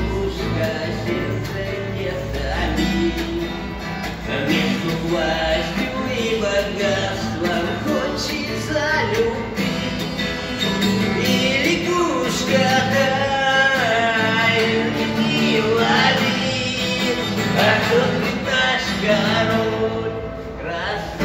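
Acoustic guitar playing with a voice singing along, a song performed live by a street musician.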